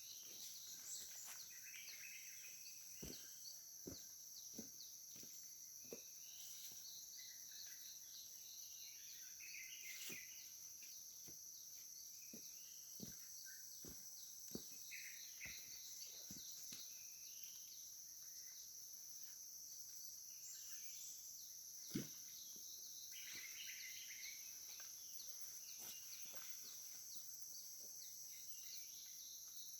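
Tropical forest riverside ambience: a steady high insect drone with scattered bird chirps and calls. Occasional faint knocks and taps break through, the sharpest a single knock about three-quarters of the way through.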